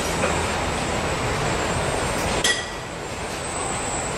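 Car assembly-line machinery running, a steady mechanical hum and hiss, with one sharp metallic clink about two and a half seconds in.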